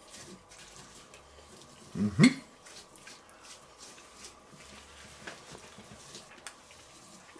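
Faint clicks and scrapes of cutlery on a plate while eating, with one brief, louder vocal sound about two seconds in.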